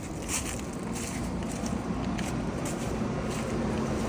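Central air conditioner's outdoor condenser unit running after a new contactor was fitted: a steady rush from the condenser fan over a low hum, growing slightly louder, with a few light ticks.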